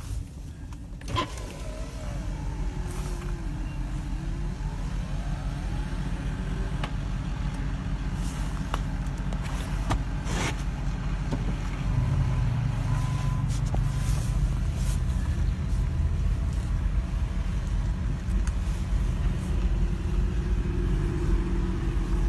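Car driving slowly, heard from inside the cabin: a steady low rumble of engine and road noise that grows a little louder about halfway through, with a couple of brief knocks.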